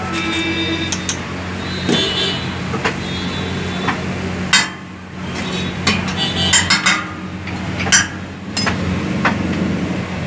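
Metal cooking utensils clinking and knocking several times, with the loudest strikes in the middle and latter part, over a steady low hum.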